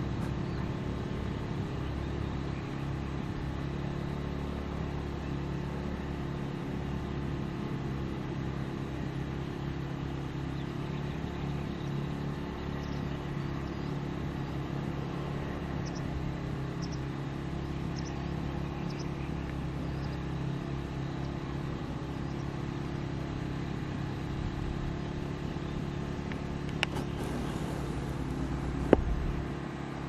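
A steady low engine hum at one unchanging pitch, with a few faint, short, high chirps midway and two sharp clicks near the end.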